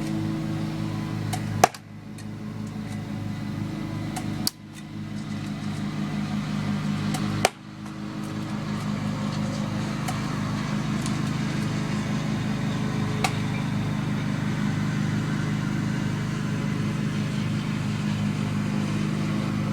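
UTG 1911 full-metal spring airsoft pistol firing three sharp snaps about three seconds apart, with two fainter ticks later. A steady low hum runs underneath.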